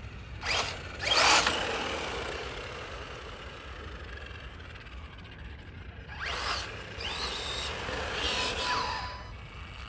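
Losi Baja Rey 2.0 radio-controlled truck's electric motor whining with its tyres rushing on pavement as it speeds past, in two passes: a loud one about a second in, and another from about six seconds in with the motor whine rising and falling.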